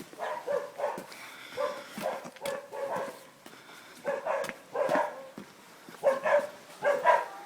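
Dogs barking in yappy, repeated strings of short barks, with a short lull a little past the middle.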